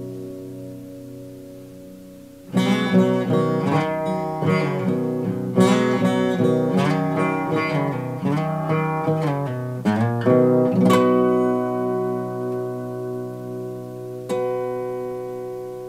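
Solo steel-string acoustic guitar played fingerstyle. A chord rings and fades, then a busy run of plucked notes and chords starts about two and a half seconds in. Near the end it settles into a held chord, which is struck once more and left ringing.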